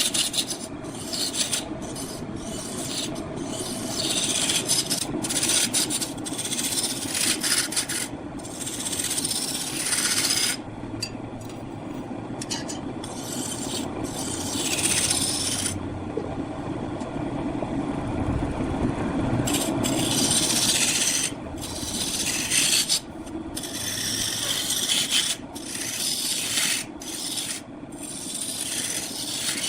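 A turning tool cutting into wood spinning on a lathe: a rasping scrape in repeated passes, broken many times by short pauses, over a steady lower running sound.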